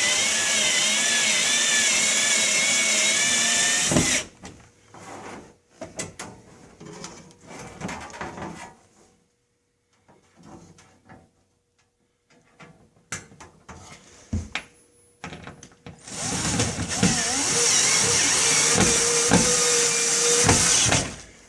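Power drill driving a screw through a sheet-metal heat shield into the wall, running steadily for about four seconds, then a pause with small clicks and handling knocks, then a second run of about five seconds near the end.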